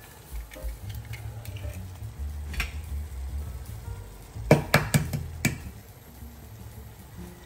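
Vegetables and chickpeas sizzling in a frying pan, with a quick run of about four sharp knocks a little past the middle.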